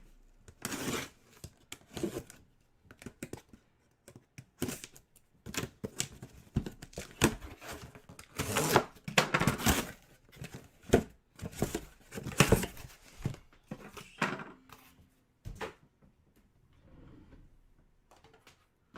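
Jersey box being opened by hand, with irregular bursts of tearing and rustling packaging.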